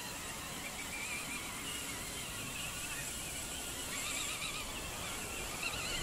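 Electric motors of radio-controlled scale crawlers whining as the trucks claw up a steep sand slope, the pitch wavering with throttle and load, and growing stronger about four seconds in.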